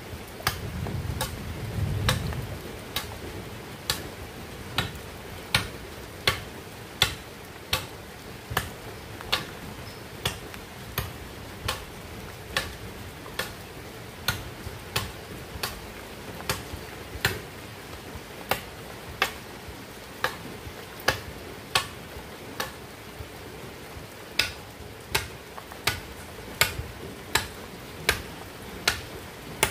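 Machete chopping into a green bamboo pole in steady strokes, a sharp knock a little more than once a second. A short low rumble about a second in.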